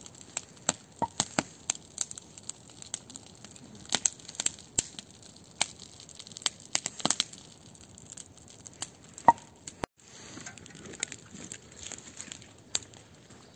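Wood stove being lit: irregular sharp cracks and clicks, with tearing and crumpling from the kindling and tinder.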